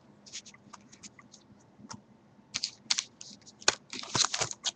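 Baseball trading cards being handled and flipped through, with irregular light clicks and taps of card against card and table, growing louder and busier about halfway through.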